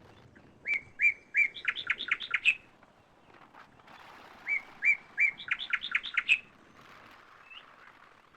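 A songbird singing two similar phrases, each made of three separate upswept notes followed by a quick run of faster notes, the second phrase about three and a half seconds after the first.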